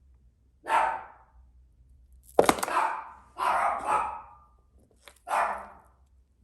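Pet dog barking, about five separate barks at uneven intervals, the loudest about two and a half seconds in.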